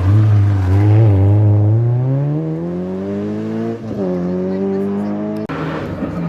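A Rally2 rally car accelerating hard, its engine note climbing steadily, with a quick upshift about four seconds in before it climbs again. Near the end the sound breaks off abruptly to a lower engine note.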